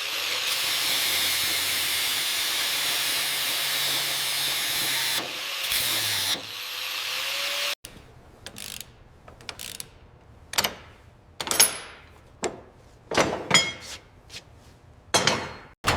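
Workshop tool noise from suspension work on the car: a steady hiss for about eight seconds, then a run of separate short knocks and clicks from hand tools.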